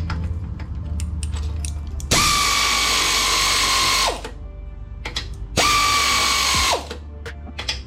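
A power tool runs in two bursts, about two seconds and then about one second, on the front-end bolts. It holds a steady whine and falls in pitch as it spins down at the end of each burst.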